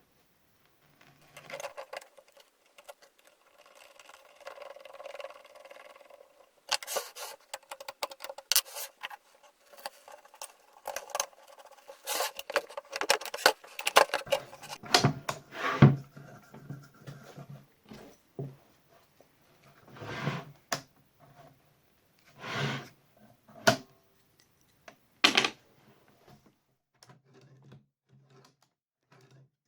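Irregular clicks, knocks and scraping of wood and metal parts being handled, with louder knocks in the middle and a faint steady squeal or hum early on.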